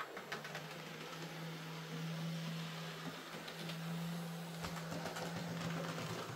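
Hornby J15 OO gauge model locomotive running on track with its replacement motor: a steady low motor hum that rises a little in pitch in the first couple of seconds, with light clicks from the wheels on the rails.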